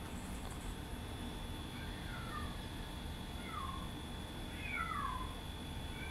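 Kitten mewing: four or five short, high, falling mews, beginning about two seconds in, the loudest a little past the middle.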